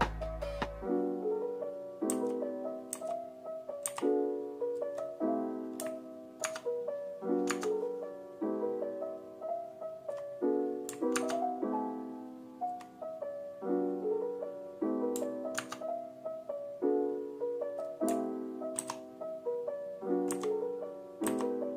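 Background music: mellow piano chords changing about every second, with light, sharp percussive ticks.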